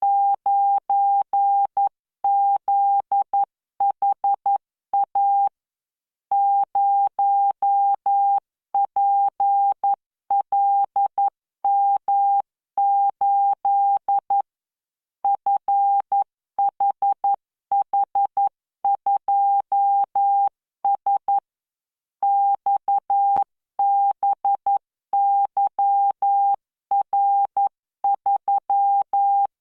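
Morse code practice signal from CW training software: a single steady beep keyed on and off into dits and dahs at 11 words per minute with standard spacing. Short pauses separate the letters and words.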